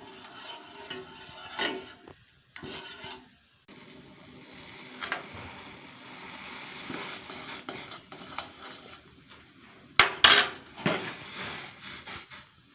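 Metal pot and kitchen utensils clinking and scraping, with a steady hiss through the middle and two sharp, loud clanks about ten seconds in.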